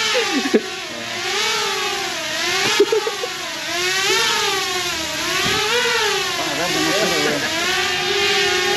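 Small quadcopter drone hovering close by: its propellers whine steadily, the pitch wavering up and down as the motors speed up and slow down while it manoeuvres. A few sharp knocks come near the start and about three seconds in.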